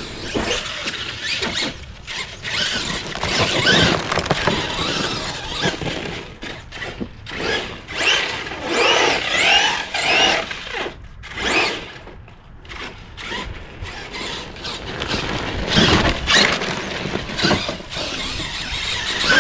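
Traxxas E-Maxx RC monster truck's VXL 3500kv brushless motor on 4S, whining up and down in pitch in repeated bursts as the throttle is punched and let off.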